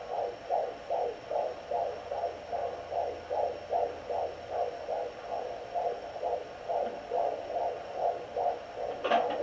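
Fetal heartbeat picked up by a Sonoline B pocket fetal doppler: a fast, even, galloping whoosh through the handheld's speaker at close to three beats a second, in the normal fetal range and faster than the mother's pulse. A brief knock is heard near the end.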